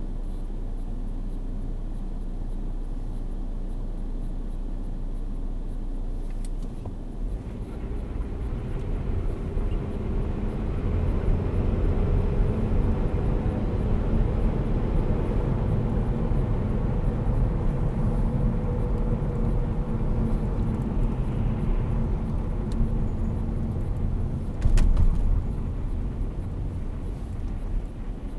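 Saab 9-5 2.3t turbocharged four-cylinder heard from inside the cabin: idling at a standstill, then pulling away and running at town speed, with tyre noise from the wet road. A brief loud thump comes about three-quarters of the way in, like the car going over a bump.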